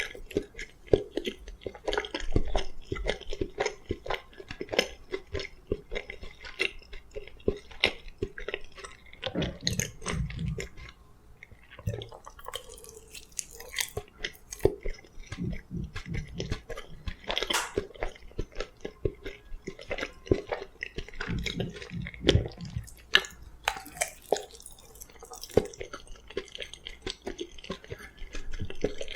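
A person chewing food close to the microphone, with irregular wet smacks, moist mouth sounds and occasional crunches.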